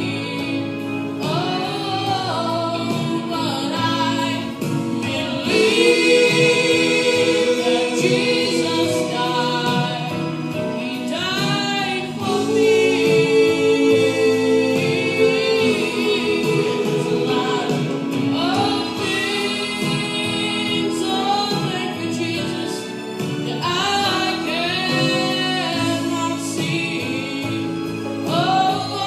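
Gospel song sung by a small vocal group in close harmony, with several voices holding long notes.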